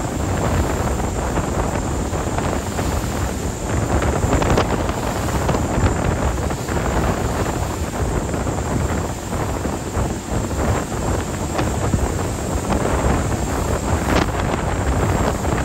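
Wind buffeting the microphone aboard a moving ferry, over the boat's steady running noise.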